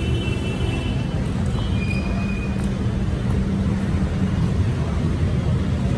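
Steady city-street traffic noise: a low rumble of vehicles with a steady low hum. A few brief, thin high-pitched tones come in the first three seconds.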